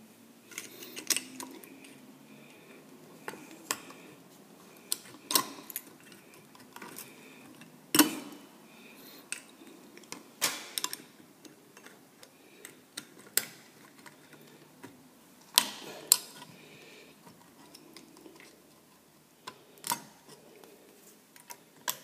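Irregular metallic clicks, taps and scrapes of a small hand tool working against an old push-button switch and its metal wall box, bending the wires down to ease the switch out. The sharpest knock comes about eight seconds in.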